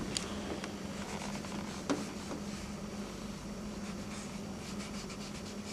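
Faint scratching of a pencil being drawn across paper in short strokes, over a steady low hum. A light tap about two seconds in.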